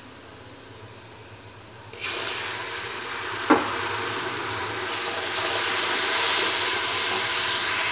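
Onions and spices frying in oil in an aluminium pressure cooker: a faint sizzle that jumps to a loud, hissing sizzle about two seconds in, with one sharp knock of the wooden spatula against the pot a second and a half later. The loud sizzle cuts off suddenly at the very end.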